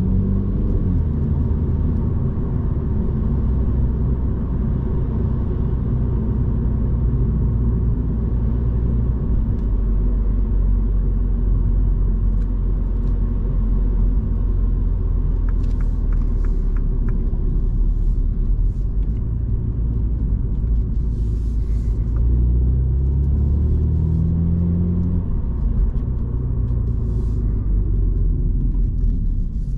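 Cabin sound of a 2022 Mini Cooper S (F56) being driven, its 2.0-litre turbocharged four-cylinder running under steady cruise with a low tyre and road rumble. The engine note rises as it accelerates around twenty seconds in, then settles, and the sound eases as the car slows near the end.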